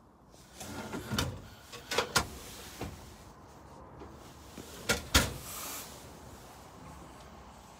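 The metal doors of a caravan's built-in grill and oven are opened and shut, giving a few sharp clunks and clicks, the last pair about five seconds in.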